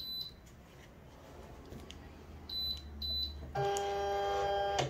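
Silhouette Cameo vinyl cutter loading a sheet of heat transfer vinyl. Two short high beeps from its control panel come about halfway through, and near the end its feed-roller motor gives a steady whine for about a second as it draws the sheet in.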